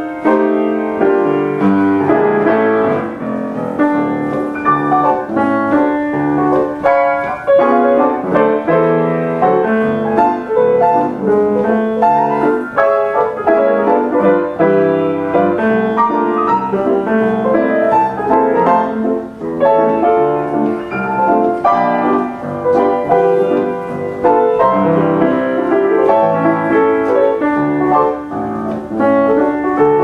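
Steinway Duo-Art reproducing grand piano playing a music roll by itself: a medley of 1930s popular songs, with a melody over chords going on without a pause.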